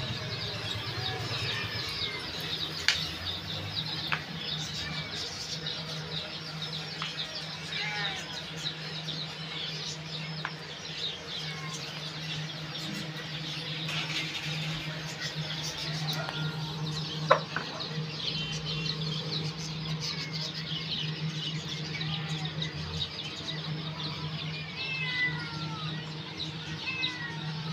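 Many birds chirping at once in a continuous chorus of short calls, over a steady low hum. A single sharp knock about seventeen seconds in is the loudest sound.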